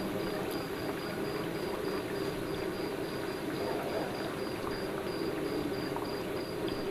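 Besan sev deep-frying in a large kadhai of hot oil: a steady sizzle and bubbling.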